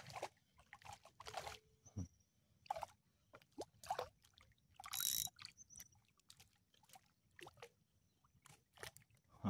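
Faint, irregular small water splashes and drips with light clicks, around a kayak on calm water. A small splash at the start comes where a fish has hit the bait on the line.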